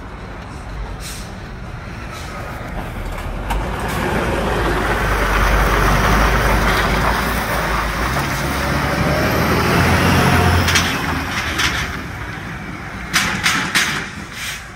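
Poultry transport truck loaded with chicken crates driving past close by: engine and road noise build to a peak and then fade. A few sharp clicks come near the end.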